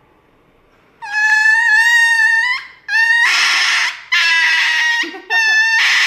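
Small dog screaming in four long, high-pitched cries with short breaks, beginning about a second in, as the injection needle goes in.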